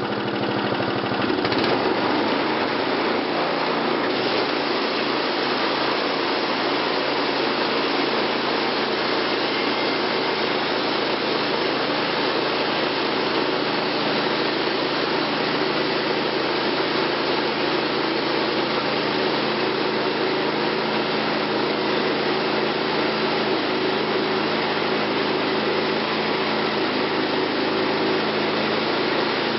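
Wood-Mizer LT20 portable band sawmill running steadily, its engine and blade keeping up an even mechanical noise. It gets a little louder about a second and a half in.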